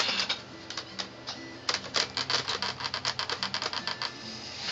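A rapid series of light, sharp clicks, sparse at first and then several a second from about a second and a half in, with faint music underneath.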